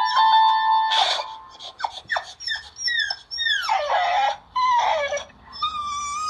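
Electronic keyboard notes held for about the first second. Then a boxer dog gives a string of whining cries that slide down in pitch, getting longer toward the end and finishing in a drawn-out yowl.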